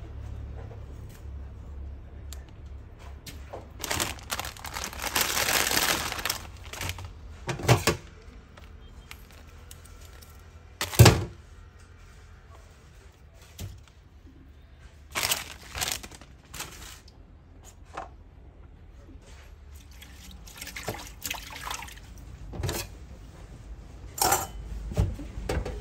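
Water in a bowl splashing and sloshing as hands push bundles of dry sotanghon noodles under to soak, broken by a few sharp knocks.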